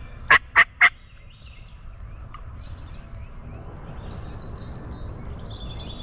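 Three sharp, loud turkey clucks about a quarter second apart, the kind of cluck used to make a gobbler raise its head. Faint songbird chirps follow from about halfway through.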